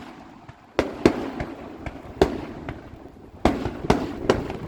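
Aerial fireworks shells bursting: about half a dozen sharp bangs at irregular intervals, each trailing into a rumbling echo, the loudest about a second in.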